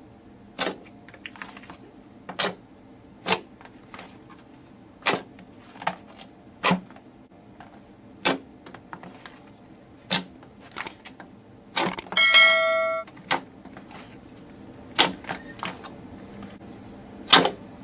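Sharp crunching cracks, one at a time at an uneven pace of about one a second, as crunchy things are crushed. About twelve seconds in, a short ringing chime sounds for about a second.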